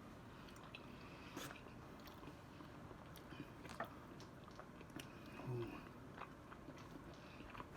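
Faint chewing and small mouth clicks of people eating boneless chicken wings, with a brief low murmur about five and a half seconds in.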